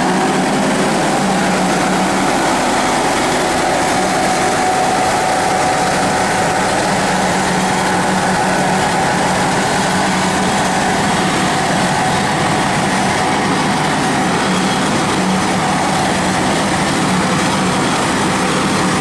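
Engine of a heavy farm vehicle running at a steady speed while it drives slowly, a loud, even drone with a steady hum.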